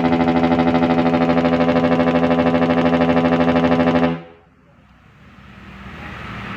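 Long trumpet-type electric air horns sounding a steady, loud multi-note chord with a fast flutter, cutting off about four seconds in. A much fainter noise then rises slowly.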